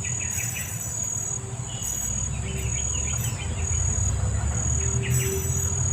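Fast-flowing river rushing in a steady low rumble. Insects chirr at a high pitch over it in repeated on-and-off stretches.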